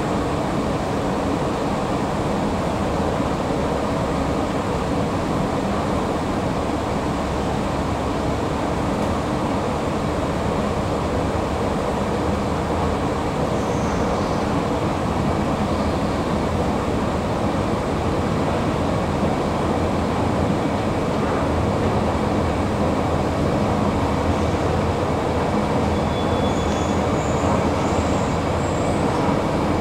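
Escalator running: a steady mechanical noise from the moving steps and drive that grows slightly louder toward the end, with a few faint high squeaks near the end.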